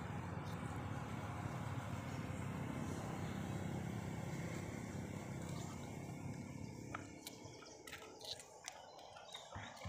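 Low steady rumble of a passing motor vehicle that fades out about two-thirds of the way through. It is followed by a few crisp clicks as a long-tailed macaque bites and chews cucumber.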